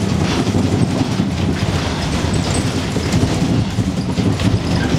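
Earthquake simulator replaying the 2011 Great Tohoku earthquake: a loud, steady, deep rumble as the simulated shaking goes on.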